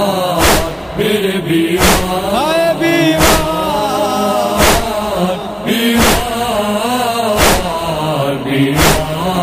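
Noha interlude: a wordless chanted vocal melody over a low steady vocal drone, with a single percussive strike about every second and a half in the beat of matam chest-beating.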